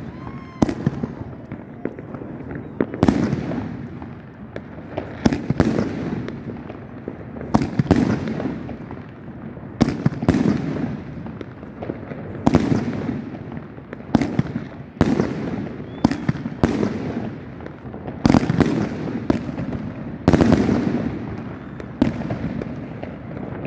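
FIREBALL XXL PXB3613 16-shot, 50 mm fireworks battery firing shot after shot. Sharp bangs come every one to two seconds, often in close pairs, each followed by a fading hiss.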